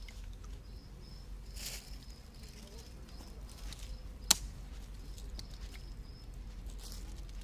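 Quiet outdoor ambience with an insect chirping over and over at a high pitch. A single sharp click sounds a little past four seconds in.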